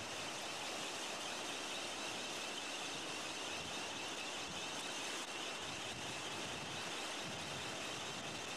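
Steady, even hiss of breaking surf and wind on the beach, with no distinct events.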